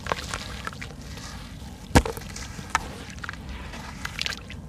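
Soft sand-cement chunks crumbling in the hands and falling into a basin of water: scattered crunches, trickles and small splashes, with one sharp knock about two seconds in.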